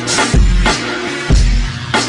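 Hip hop backing music: a beat of deep kick drums and sharp snare hits, about one hit every two-thirds of a second.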